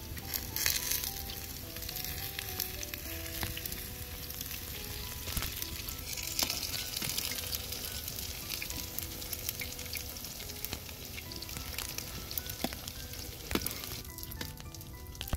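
Potato patties sizzling and crackling in hot oil in a metal pan, steady throughout, with a metal slotted spoon moving them in the pan and tapping now and then.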